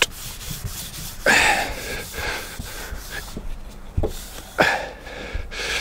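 A man breathing heavily, with two long breaths out, about a second in and near the end, and a couple of short knocks in between.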